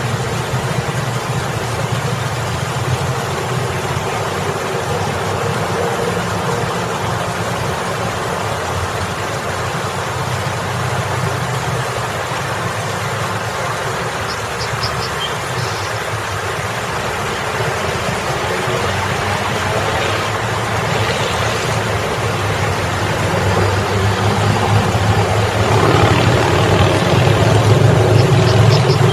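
Water splashing steadily down a boulder waterfall fountain, over a constant hum of road traffic. In the last few seconds the traffic noise swells as a car passes close.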